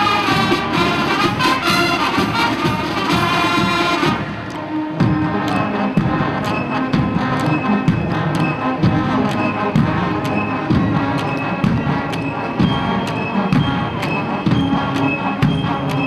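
College marching band playing: brass horns holding notes over drums with a steady beat. The music changes abruptly about four seconds in.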